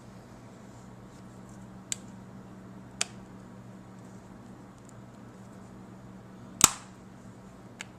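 iPod Touch case being pressed together, its cover snapping into place with sharp clicks: four clicks, the loudest about two-thirds of the way through, over a faint steady hum.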